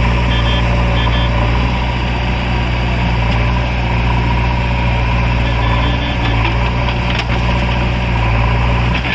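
Diesel engines of a JCB 3DX backhoe loader and an Eicher 551 tractor running side by side, a steady low drone. A few short electronic beeps sound in the first second and again about six seconds in.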